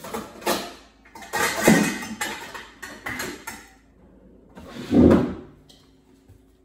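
A kitchen drawer of cookware being opened and rummaged through for a pan lid: a series of knocks and rattles, then a heavy thump about five seconds in as the drawer is pushed shut.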